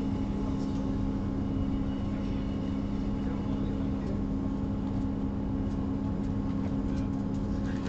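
Interior running noise of a Class 158 diesel multiple unit under way: a steady low two-note engine hum over an even rumble, holding constant throughout.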